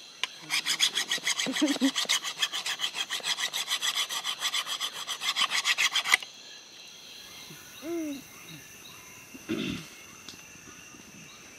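A wooden stick being scraped by hand with fast, even rasping strokes, about seven a second, for about six seconds, then stopping abruptly. Forest insects keep up a steady high drone underneath.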